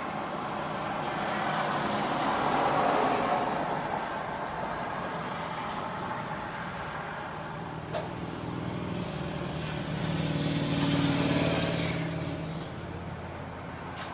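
City street traffic: vehicles pass with a steady rush of tyres and engines, swelling as one goes by about three seconds in and again near eleven seconds, when a low engine hum rises with it. A single sharp click comes about eight seconds in.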